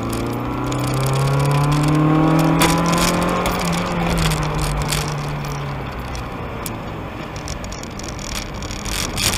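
1992 Mazda Miata's 1.6-litre four-cylinder, fitted with headers and a cat-back exhaust, under hard acceleration, heard from inside the car. The engine note rises over the first two or three seconds and holds. About six seconds in it drops away as the throttle comes off, then picks up again near the end.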